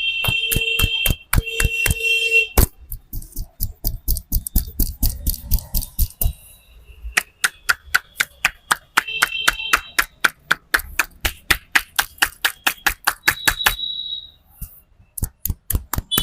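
A barber's hands tapping the customer in rapid, even chopping strokes during a head massage, about six sharp slaps a second. A high steady tone, like a horn or beeper, sounds in short bursts a few times.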